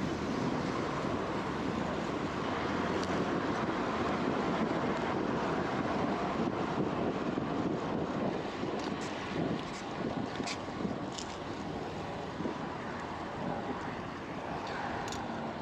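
Wind buffeting the microphone of a cyclist riding through city traffic, a steady roar with road and traffic noise under it. A few sharp ticks come in the second half.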